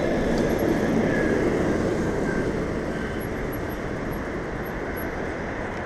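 Steady rushing road noise of a bicycle ride on wet city pavement, with light city traffic.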